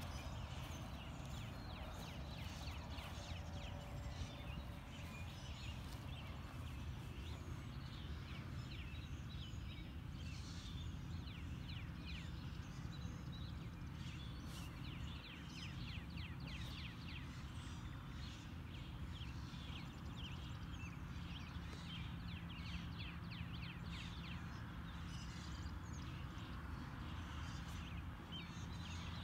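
Early-spring morning bird chorus: many birds calling at once, a dense mix of short high chirps and trills, over a steady low background rumble.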